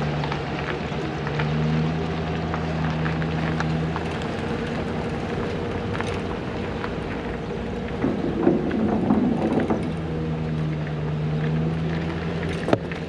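An engine running at a steady speed, with a louder, rougher stretch about eight seconds in.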